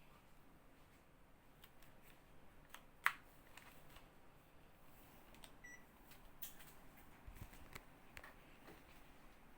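Near silence with scattered faint clicks. One sharp click about three seconds in, and a brief faint high beep a little before the six-second mark.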